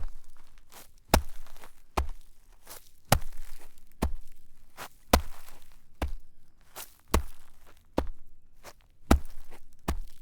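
Footsteps walking in shallow snow: a slow, even pace of about one step a second, each step a sharp contact followed by a brief crunch.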